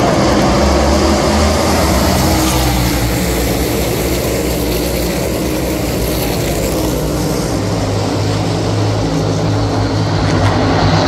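A pack of NASCAR Cup Series stock cars' V8 engines running at racing speed around the track. The sound is loud and steady with a deep bass.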